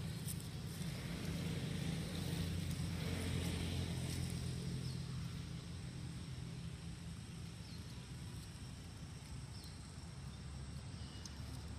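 Steady low engine hum, strongest in the first few seconds and then easing off, with a few faint high chirps over it.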